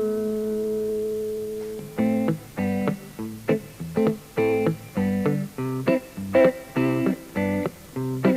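Instrumental break in a Russian folk song: a guitar chord rings on, then about two seconds in the guitar starts strumming short chords in a steady rhythm, about two a second.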